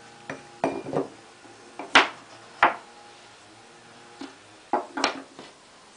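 Cut MDF toy parts clacking and knocking on a wooden workbench as they are picked up and set down: a string of sharp knocks, the loudest about two seconds in and a quick cluster near the end.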